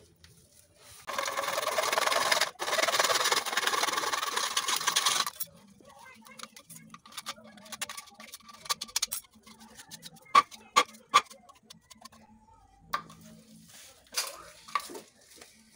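Utility knife scraping and cutting a PVC pipe: a steady rasping for about four seconds with one short break, then scattered light scrapes and clicks as the pipe is handled.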